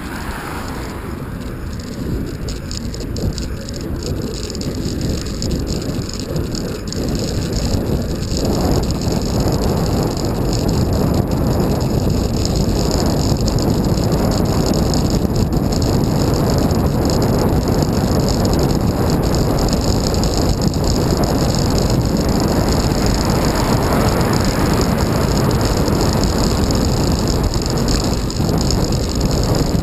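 Ride noise picked up by a bicycle-mounted camera: wind rushing over the microphone and tyres running on wet tarmac, with some rattle from the bike. It grows louder over the first ten seconds or so, then stays steady.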